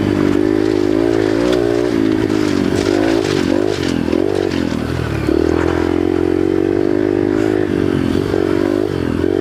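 Yamaha TTR 125's single-cylinder four-stroke engine running under load while ridden over trail bumps, its revs rising and falling with the throttle. Rattling clatter from the bike comes in around the middle.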